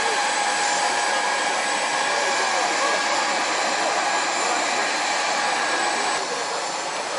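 Parked aircraft's turbine engine running: a steady rushing noise with a constant high whine, dipping slightly about six seconds in.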